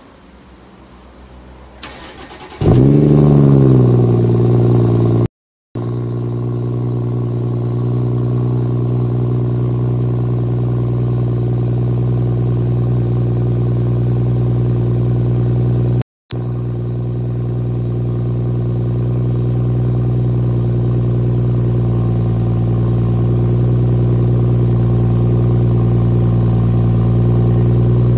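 BMW 340i's 3.0-litre turbocharged inline-six (B58), heard at the stock exhaust tip, cranks and fires about three seconds in with a loud start-up flare that settles within a second or two, then idles steadily with a deep, even exhaust note as it warms from a cold start. The sound cuts out briefly twice.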